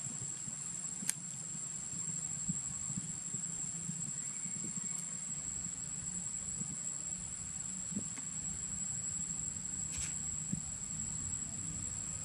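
Steady, high-pitched drone of insects in the trees, with a low hum beneath and a couple of faint clicks.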